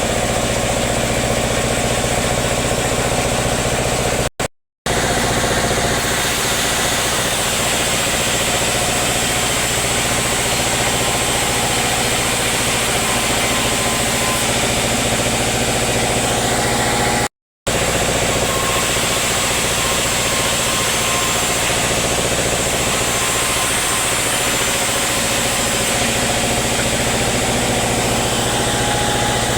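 Sawmill machinery running steadily with a constant engine-like hum, with two brief cuts to silence, about four seconds in and about seventeen seconds in.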